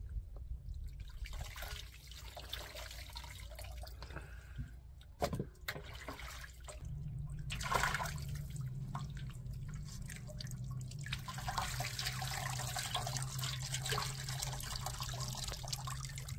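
Water splashing and dripping as raw chicken pieces are rinsed by hand in a metal basin, with irregular sloshes and small knocks. A low steady hum joins about seven seconds in.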